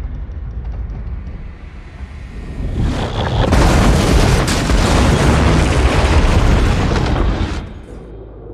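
Film sound effects of a high-speed train derailing and crashing: a low rumble builds, and about three seconds in it swells into a loud crashing roar. The roar lasts about four seconds, then dies down near the end.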